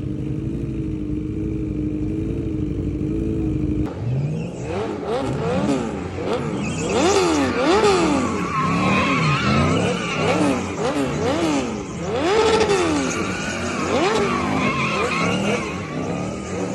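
Mercedes-Benz E500 W124's M113 V8 running with a steady low drone, then, after an abrupt change about four seconds in, revving up and down over and over in quick bursts while the tyres squeal, as in drifting.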